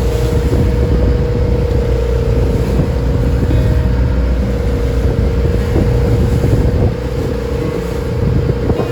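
A traditional wooden passenger boat's engine running steadily at sea, a loud low rumble with a constant hum, under a wash of wind and water noise.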